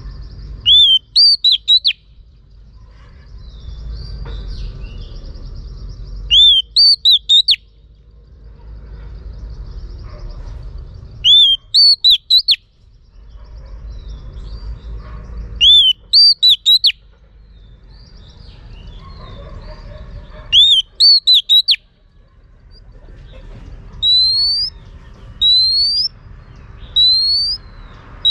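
Female oriental magpie-robin singing the call used to rouse males: five short phrases of quick rising-and-falling whistled notes about every five seconds, then near the end a run of single upward-sweeping whistles about one every second and a half. A low rumble sits between the phrases.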